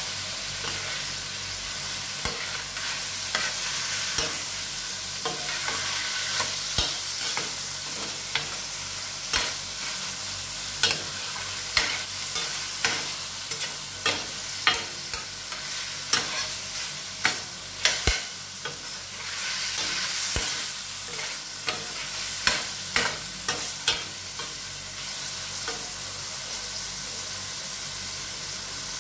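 Chicken pieces and sliced red onion sizzling in a stainless steel frying pan, with a steady hiss. A metal spatula stirring the food scrapes and clacks against the pan in irregular sharp knocks, most often through the middle of the stretch.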